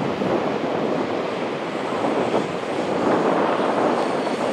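A Dongfeng 4 (DF4) diesel locomotive hauling a freight train past, its diesel engine running along with the steady noise of the wagons rolling on the rails.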